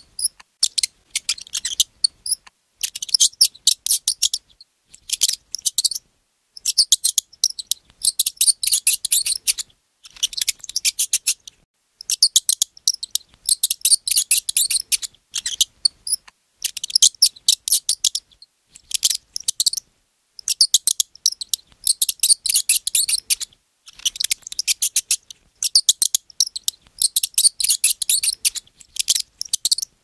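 A mouse squeaking: runs of rapid, high-pitched squeaks lasting a second or two, with short pauses between them.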